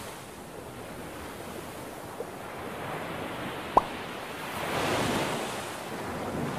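Ocean waves sound effect washing steadily, with a single short plop a little over halfway through and a wave surging louder about five seconds in.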